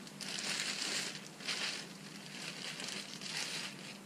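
Clear plastic bag crinkling and rustling as it is pulled and handled, in several uneven bursts.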